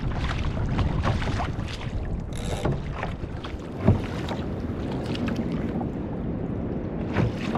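Kayak paddle strokes dipping and splashing into the sea on alternate sides, a stroke every second or so, with wind buffeting the microphone. There is a sharp knock about four seconds in.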